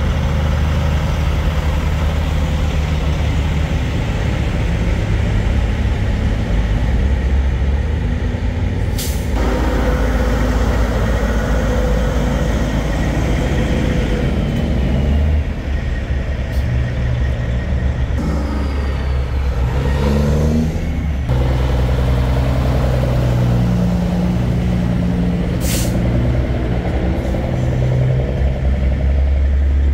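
Big-rig diesel engines running as semi trucks roll slowly past, with a steady low engine drone and the revs climbing in steps around twenty seconds in. Two short air hisses, about nine seconds in and again near the end, typical of truck air brakes.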